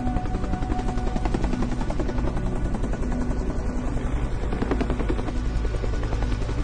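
Background music with a fast, even throbbing pulse in the low end, about six beats a second, under held sustained notes.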